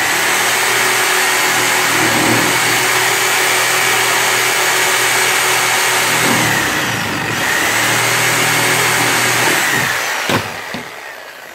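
Corded reciprocating saw running as it cuts the end of a flattened PVC pipe rib off at an angle. Its pitch dips and picks back up about two-thirds of the way through. It stops about ten seconds in, followed by a single knock.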